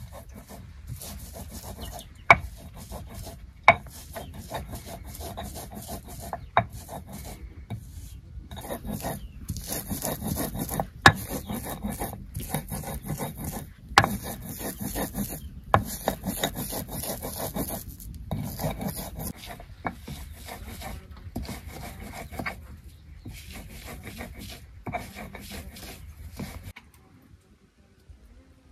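Repeated rasping, scraping strokes in short runs broken by brief pauses, with a few sharp knocks in between; the sound stops near the end.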